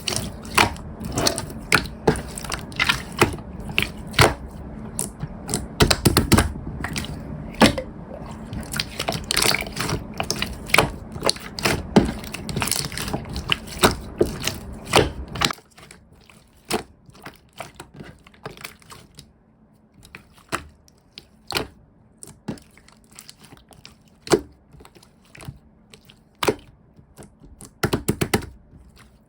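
Slime being squished and pressed by hand, a fast run of sticky clicks and pops. About halfway through, the low rumble underneath stops and the pops become sparse and quieter.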